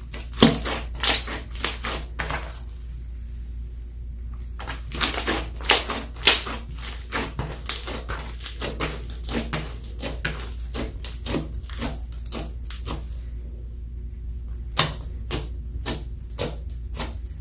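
Slime being squeezed and worked by hand, giving runs of sharp clicks and pops in quick irregular series, with two short pauses, over a steady low hum.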